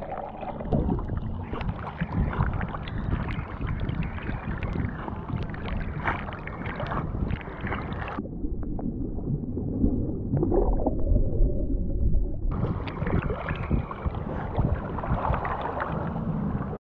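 Sea water sloshing and splashing against a waterproof camera held at the surface. For about four seconds in the middle the sound turns muffled as the camera dips into the water, then the open splashing returns.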